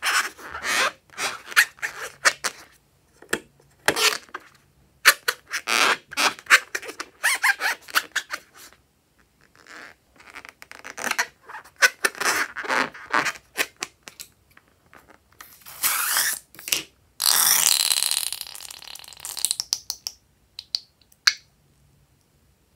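Rubber balloon filled with slime squeaking and rubbing under the fingers in a string of short scratchy sounds. Later the contents are squeezed out of the balloon into a plastic bowl with a wet, sputtering squelch lasting about three seconds.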